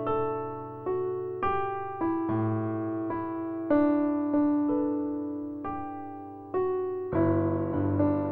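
Background music: a slow, gentle piano melody, single notes struck about every half second to a second, each ringing and fading.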